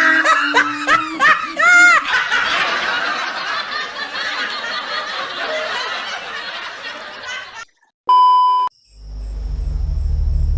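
Loud laughing, then a dense, fading wash of many people laughing. About eight seconds in, a short beep sounds, and a low rumbling music drone starts to swell.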